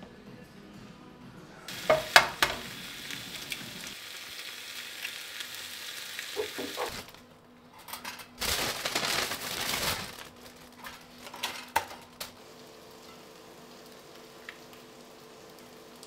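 Food sizzling in a frying pan in two stretches, with a few sharp clicks and clatters of kitchen utensils. After about ten seconds it drops to a quieter background with a faint steady hum.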